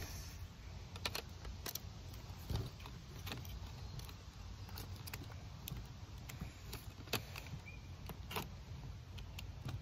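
Scattered sharp clicks and light knocks of a hard plastic toy dinosaur figure being handled as a part is fitted onto it, over a steady low rumble.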